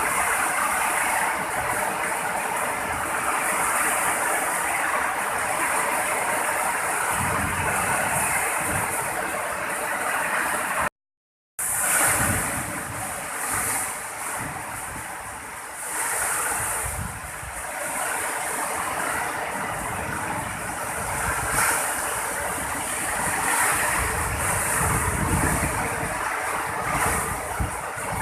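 Heavy rain pouring steadily, with gusts of wind rumbling on the microphone now and then. The sound cuts out completely for about half a second around eleven seconds in.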